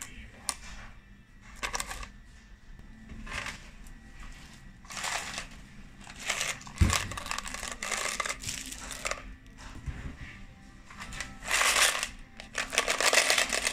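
Loose coins clinking and shifting inside a cloth pouch, in irregular bursts of rattling and rustling, as the coin takings from a toy vending machine are handled; the loudest stretch comes near the end.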